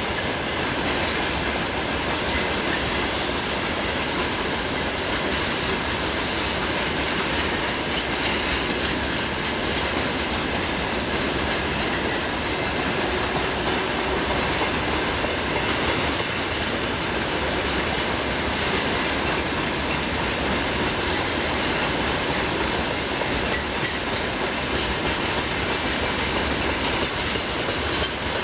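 A long freight train of open-top gondola wagons rolling past, its wheels running steadily over the rails in an unbroken rumble.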